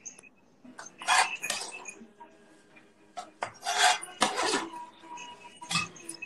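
Kitchen utensils and dishes clattering and clinking in three separate bursts: about a second in, around four seconds in, and again near the end.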